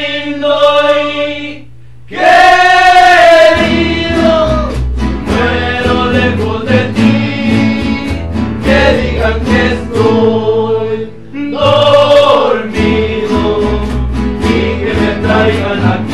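A rondalla: several men singing in harmony, accompanied by strummed acoustic guitars and a plucked upright bass. The voices break off briefly about two seconds in, then come back in with the bass and guitars, pausing again for a moment a little past the middle before the next phrase.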